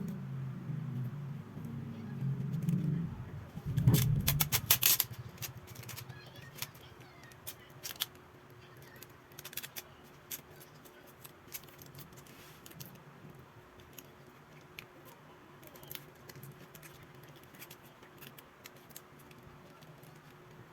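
Small clicks and ticks of a smartphone and its parts being handled during repair, with a quick run of sharp clicks about four seconds in and scattered faint ticks after. A low muffled sound fills the first three seconds.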